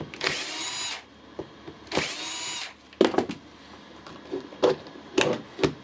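Milwaukee cordless impact wrench triggered twice in short runs of under a second, its motor whining at speed. Sharp clicks and knocks follow in the second half. The tool makes the bad sound when working that sends it to have its bearings and anvil checked.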